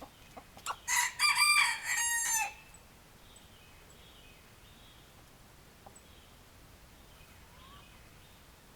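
Rooster crowing once, a loud crow lasting about a second and a half, followed by a few faint bird chirps.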